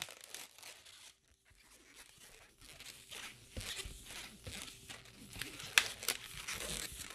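Latex modelling balloon rubbing and squeaking under the fingers as it is twisted into small bubbles for a pinch twist. The sounds are faint and irregular, starting about two and a half seconds in, with one sharper click near the end.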